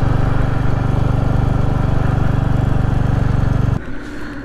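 Royal Enfield Hunter 350's single-cylinder engine running at a steady pitch under way, heard from on the bike with its rapid, even beat of firing pulses. It cuts off suddenly near the end.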